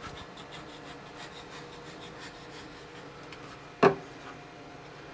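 Faint rubbing and light scratching as CA glue is applied to blue painter's tape on a wooden workpiece, with one sharp knock a little under four seconds in.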